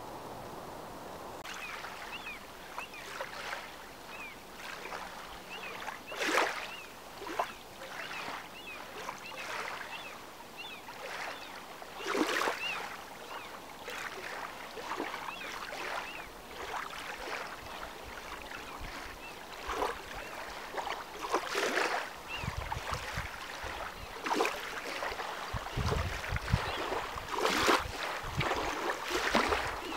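Small waves lapping and splashing against a lakeshore at an uneven pace. A small bird chirps repeatedly through the first half. Gusts of wind buffet the microphone in the last several seconds.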